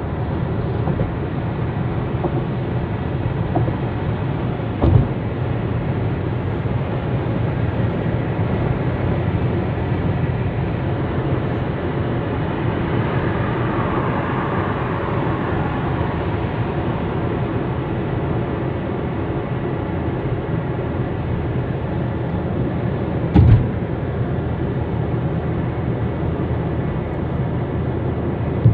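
Steady road and engine noise heard inside a moving car's cabin at motorway speed, with a brief thump about five seconds in and another about five seconds before the end.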